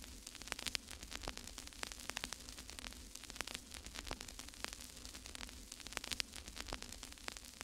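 Faint crackling static: irregular sharp clicks, several a second, over a steady low hum.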